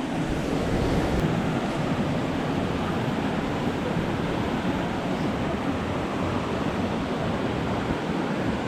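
Waterfall rushing with a steady, even sound of falling water.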